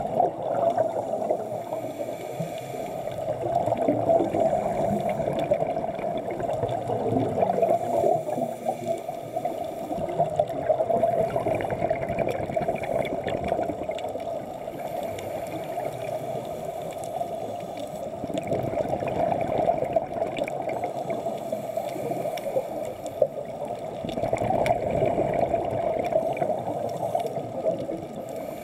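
Scuba regulator exhaust bubbles gurgling underwater, swelling and fading every few seconds with the diver's breaths.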